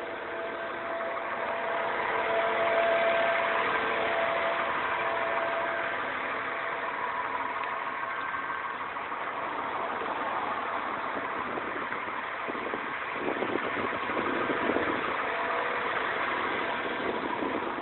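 New Flyer diesel-electric hybrid transit bus idling at close range: a steady engine drone with a few steady tones running through it.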